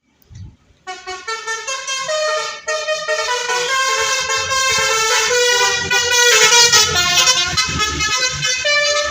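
Basuri multi-tone telolet bus horn playing a tune: several horn tones sound together as a chord and step from note to note, starting about a second in.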